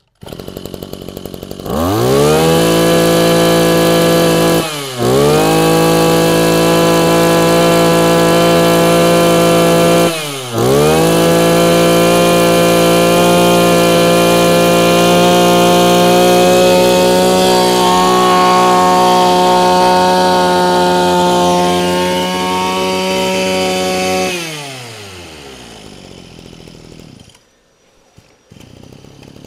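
Mitsubishi TL23 23cc two-stroke brush cutter engine, run up to full throttle about two seconds in and held there, with two brief throttle drops near five and ten seconds. About 24 seconds in the throttle is released and the revs fall back to a low idle.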